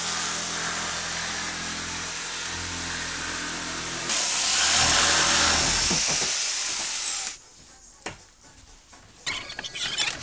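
Electric jigsaw cutting through cardboard: it runs steadily, gets louder with a high whine for about three seconds, and cuts off about seven seconds in. After that come only a few faint knocks.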